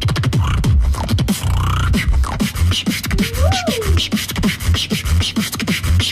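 Beatboxing: a fast, dense beat of deep kick sounds that drop in pitch, with sharp clicking snares. About three seconds in, a vocal tone slides up and back down over about a second.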